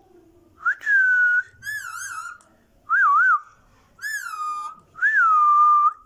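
An Indian ringneck parakeet whistling: five short whistles about a second apart, some sliding down in pitch and some wavering up and down.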